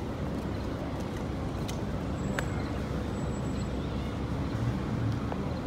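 Steady city road traffic noise: cars running along the road beside the sidewalk, a continuous low rumble.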